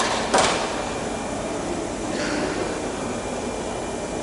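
A sharp knock about a third of a second in, then a softer scrape around two seconds in, as a metal leading-edge wing rib is handled and fitted against the spar, over steady workshop background noise.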